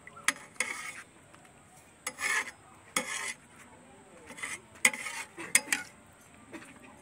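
Slotted metal spoon stirring rice and water in a metal pot, in several short strokes of clinking and scraping against the pot.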